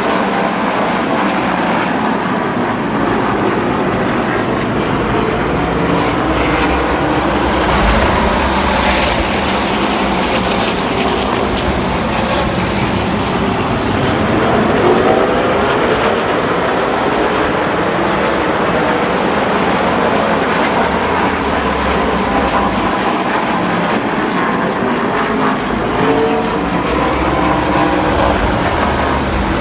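Several NASCAR race trucks' V8 engines running together at speed, a dense engine din whose many pitches rise and fall as the trucks go by.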